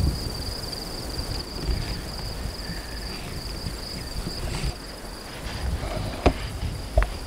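Steady, high-pitched insect trilling over a low wind rumble on the microphone, with two sharp clicks near the end.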